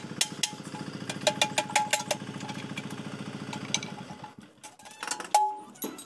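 Sharp metallic clinks and taps of spanners working on a hand pump's metal head, with one louder ringing clank near the end. An engine idles steadily underneath and cuts out about four seconds in.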